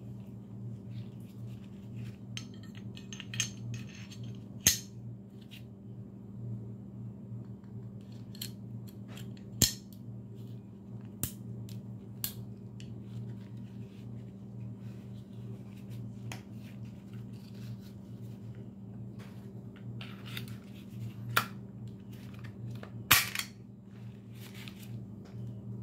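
Metal parts of a semi-automatic pistol clicking and clacking as the barrel, recoil spring and slide are fitted back together: scattered sharp clicks every few seconds, the loudest near the end, over a steady low hum.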